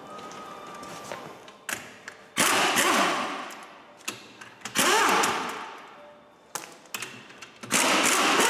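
Impact wrench spinning off a van's front wheel nuts, in three bursts of about a second each, with a few light clinks between them. The nuts were stiff with rust and had first been broken loose with a breaker bar.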